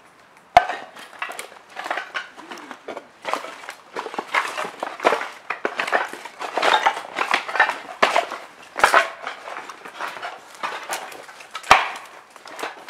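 Footsteps crunching through dead leaves, twigs and broken boards, with irregular rustling and crackling of brush and branches, and a few sharp cracks about half a second in, about nine seconds in, and near the end.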